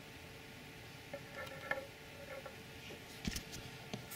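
Faint small clicks and ticks from handling a small diecast model airliner. About three seconds in comes a sharper knock as the model is set down on a wooden table, then a lighter tap.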